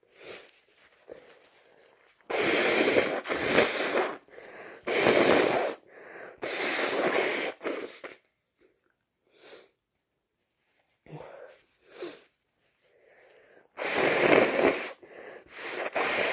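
A person with a cold blowing their nose hard: several long noisy blasts in quick succession, then a pause of several seconds and two more blows near the end.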